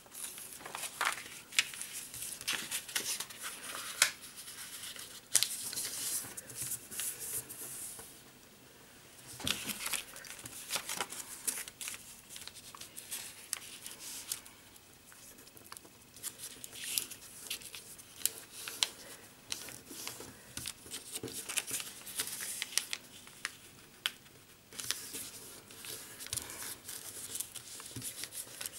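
A sheet of origami paper being folded and creased by hand: crisp rustling and crinkling in bursts, with sharp little clicks as the folds are pressed down. There are short pauses between bursts.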